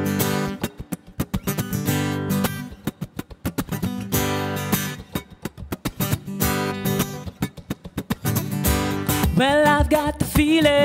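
Song intro on strummed acoustic guitar in a steady rhythm. A voice begins to sing near the end.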